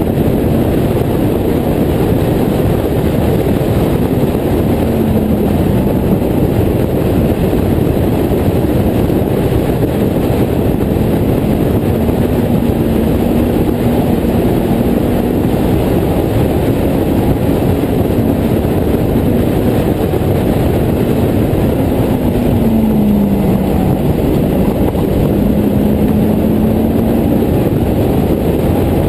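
Honda S2000 four-cylinder engine in a Westfield clubman car running hard at racing speed, its note falling as it slows for corners and rising again as it accelerates out, under a heavy rush of wind noise in the open cockpit.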